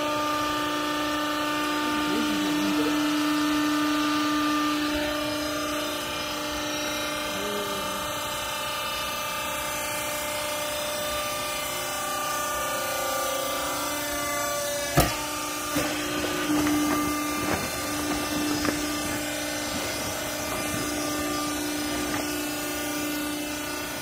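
Hydraulic pump motor of a vertical clothing baler running with a steady hum as the press works. A single sharp click comes about fifteen seconds in, followed by a few light knocks.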